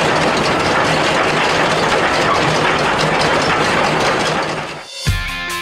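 Loud, steady mechanical clatter and rumble, cutting off near the end as rock music with electric guitar and drum hits starts.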